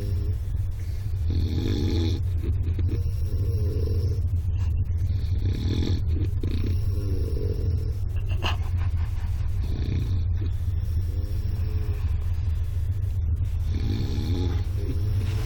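A person snoring in a regular rhythm, about one rasping, wavering snore every four seconds, over a steady low rumble from the moving train.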